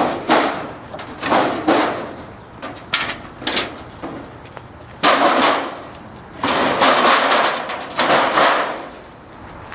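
Scraping and clattering as a motorcycle is rolled off the metal base of its shipping crate: a string of harsh noises, each under a second to about a second and a half long, with the longest and loudest near the end as the bike comes off the pallet.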